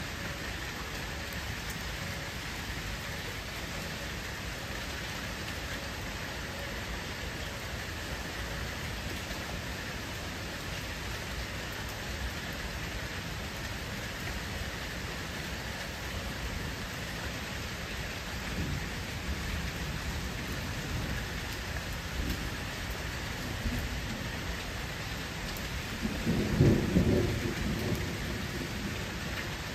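Steady rain falling on a pool's water surface, an even hiss, with a brief low rumble near the end.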